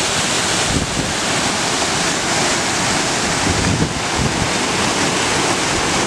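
Waterfall cascading over rock ledges: a steady rush of water, with wind buffeting the microphone in uneven low rumbles.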